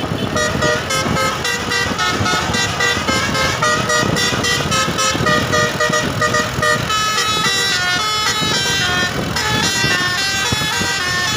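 Indonesian bus 'telolet' multi-tone air horn playing a fast tune of short notes that change pitch every fraction of a second, over a noisy rumble.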